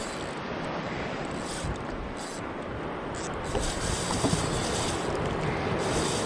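Wind on the microphone over the wash of sea waves and swell around a jet ski, a steady rushing hiss that grows louder from about three and a half seconds in.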